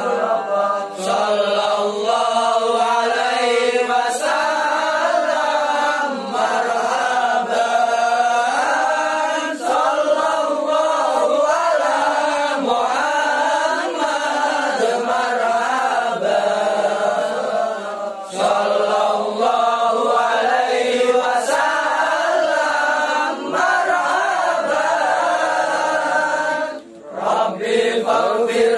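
Group of young men chanting Islamic sholawat together in unison, unaccompanied, on a slow, winding melody. The chanting stops briefly between phrases, longest near the end.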